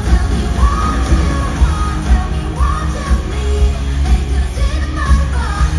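K-pop song performed live through a stadium sound system: a girl group's vocals singing over a heavy bass beat.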